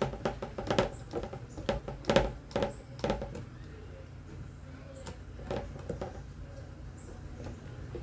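Clicks and taps of a hand Phillips screwdriver and plastic fan parts being worked on, busy in the first three seconds or so and then only a few scattered clicks, over a low steady hum.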